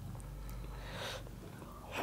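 Quiet sounds of people eating with their hands from steel plates, faint handling and mouth sounds, with a short breathy puff about a second in.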